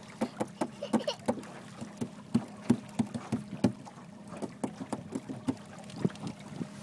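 Small motor boat under way: a steady low motor hum with water slapping the hull in quick, irregular knocks.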